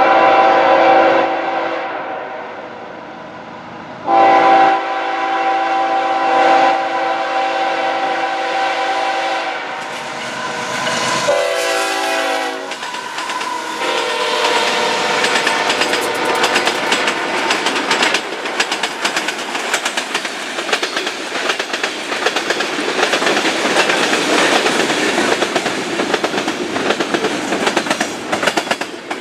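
Freight locomotive air horn sounding several blasts for a grade crossing: a long one, then a shorter, broken one. Then the train passes at speed, steel wheels clattering over the rail joints as a long string of freight cars rolls by.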